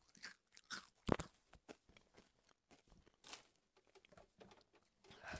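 Faint chewing of Flaming Hot Cheetos: a few soft, scattered crunches, the loudest about a second in.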